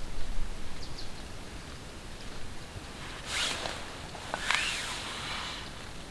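Handling noise at a small kindling fire being lit: faint rustling of clothing and dry grass as split sticks are moved, with two brief louder rustles about three and four and a half seconds in.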